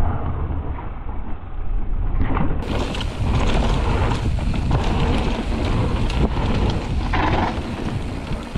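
Wind buffeting the camera microphone over the hiss and rumble of mountain-bike tyres rolling fast on a dirt trail, with the clatter and knocks of the bike over bumps. The sound is duller for the first two and a half seconds, then fuller.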